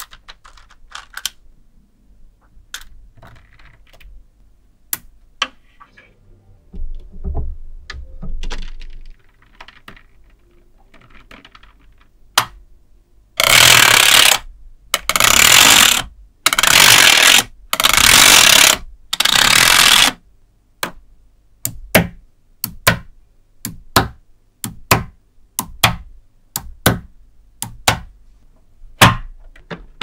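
Small neodymium magnet balls snapping and clicking as strips of balls are pressed onto a growing wall of balls. There are scattered sharp clicks at first, five loud rattling rushes of about a second each around the middle, and then a steady run of single snaps, about one or two a second.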